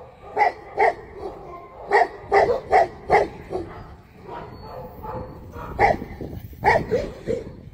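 Tibetan mastiff barking: a run of about six barks, a pause of about two seconds, then four more barks close together near the end.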